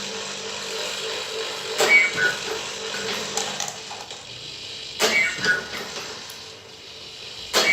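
Homemade motor-driven mechanical ventilator running: a steady motor hum, with a sharp click and a short two-note squeak repeating about every three seconds, once for each breathing cycle.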